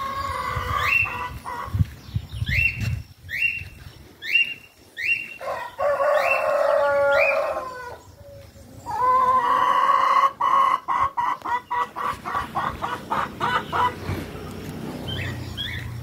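Farmyard chickens calling: a rooster crowing, a string of short rising calls, and a fast run of clucks about five a second near the end.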